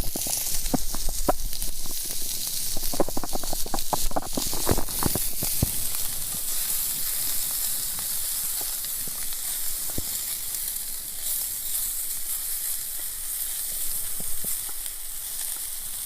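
Food frying in a small frying pan: a steady high sizzle, with sharp pops and crackles that are frequent for the first six seconds or so and then fade to the occasional one.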